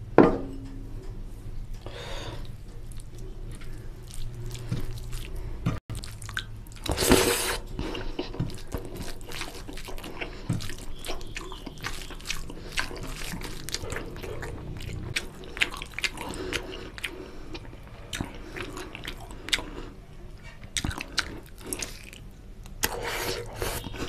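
Fingers squishing and mixing rice into oily chicken curry gravy, a dense run of wet clicks and smacks with a louder burst about seven seconds in. Chewing near the end.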